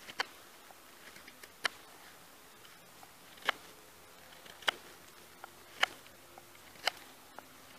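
Slip-joint folding knife whittling a wooden tent peg. The blade makes six short, sharp cutting strokes, about one a second.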